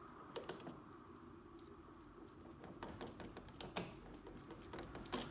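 Faint scattered clicks and taps from handling a glue-pulling dent repair tool: a few about half a second in, then more often in the second half, the strongest near the end.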